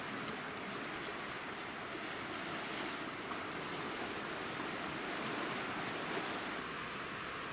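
Sea washing against shoreline rocks: a steady rushing surf noise.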